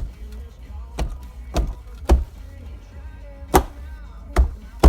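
Background music with a steady, heavy beat, about two beats a second.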